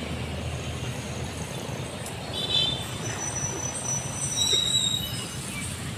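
Street ambience in a town plaza: a steady rumble of passing traffic, with a few short, high chirps or squeaks about two and a half seconds in and again near four seconds.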